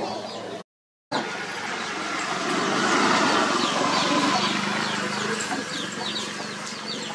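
A motor vehicle passing, its noise swelling to a peak about three seconds in and then fading with a low engine hum; small birds chirp repeatedly throughout.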